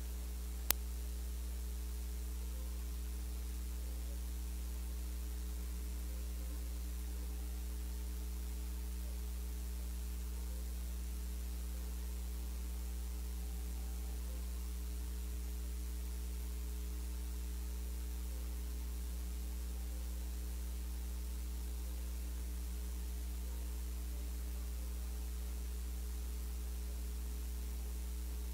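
Steady electrical mains hum with a layer of hiss, and one sharp click about a second in.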